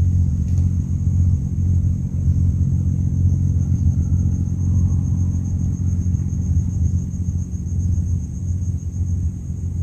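A motor running steadily off-screen, giving a low, even rumble, with a faint high steady trill over it.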